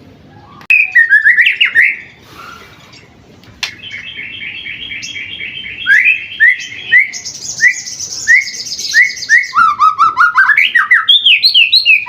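Young white-rumped shama (murai batu) singing loudly in a varied song of quick repeated rising whistles and rapid trills, pausing briefly about two seconds in, then returning with fast trills and sharp upslurred notes repeated a couple of times a second.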